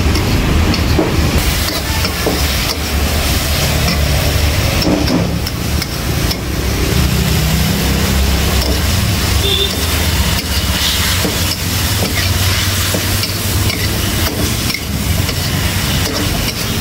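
Sliced beef stir-frying in a wok over a gas burner: steady sizzling, with the metal spatula scraping and knocking against the wok as the meat is tossed, over a constant low rumble.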